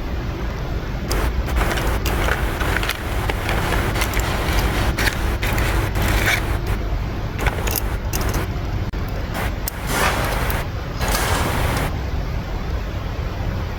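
Workshop noise: metal tools and parts clinking and scraping in irregular bursts over a steady low rumble.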